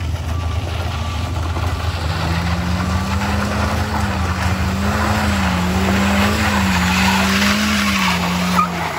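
Toyota Calya's engine running at high revs as the car climbs a steep loose-gravel slope, its pitch wavering up and down, under a gravelly hiss of tyres on loose stones that grows louder as it approaches.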